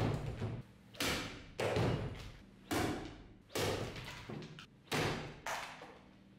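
Restored Caucasian shashka blade chopping into a pumpkin on a wooden stump, with slices thudding onto the wooden table. About seven sharp hits at uneven intervals, each dying away quickly.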